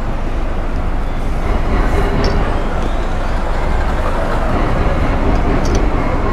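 Harley-Davidson Street Rod 750's liquid-cooled V-twin idling with a steady low rumble.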